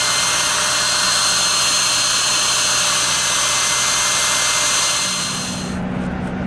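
Handheld hair dryer running steadily on high with a whine, blowing on the motorhome's transmission shift-pad control module to warm it: the module is thought to have a bad solder joint that loses contact when cold. The dryer cuts off near the end, leaving a low steady hum.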